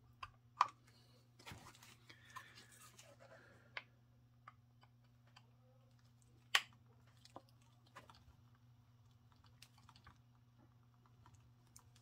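Scattered clicks and taps of a screwdriver working the lower grip screw of a pistol with G10 grip panels, with a brief scraping rustle about two seconds in. The two loudest clicks come about half a second in and about six and a half seconds in.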